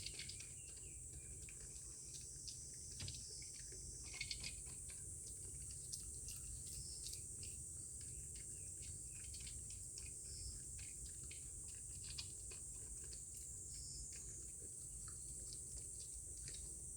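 Steady high-pitched insect drone in summer, with faint scattered small clicks and taps.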